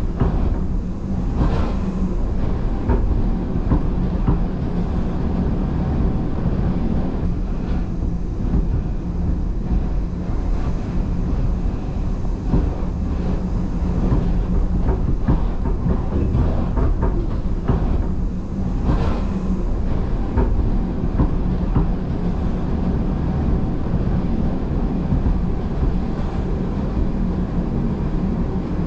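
Gornergrat Bahn electric rack-railway train running downhill, heard from inside the passenger car: a steady rumble of wheels and rack gear under a constant motor hum, with a few sharp clicks from the track now and then.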